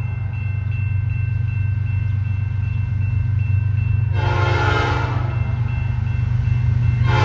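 Diesel freight locomotive's air horn sounding a short tap of about a second, four seconds in, then starting another blast near the end, over a steady low rumble.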